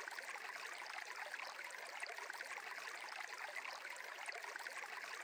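Faint, steady sound of a flowing stream, a continuous water bed with no change.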